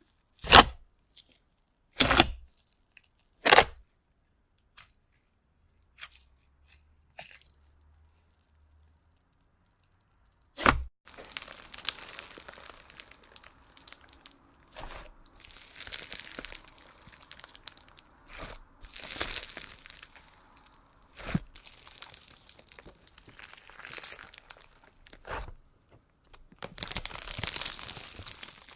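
Slime being squeezed and pressed, making crisp crackling and crunching sounds. Three loud sharp snaps come in the first few seconds. After a short quiet spell there is one more snap, then steady crackling with scattered louder pops to the end.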